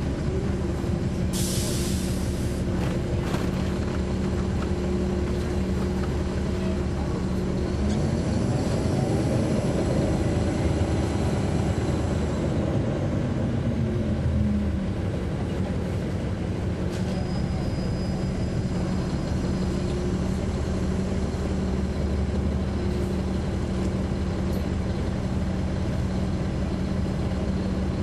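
Caterpillar C13 ACERT diesel engine of a NABI transit bus running, heard on board, with a short hiss of air about a second and a half in. The engine pitch rises around eight seconds in and drops back about six seconds later.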